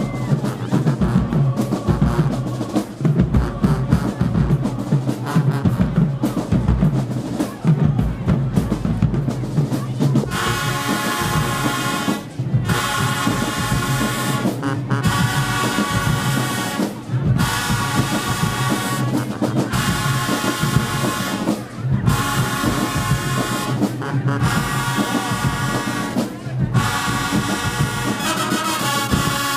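Marching band: the drumline plays alone at first, then about ten seconds in the brass section comes in loud with short repeated phrases, each cut by a brief break roughly every two and a half seconds.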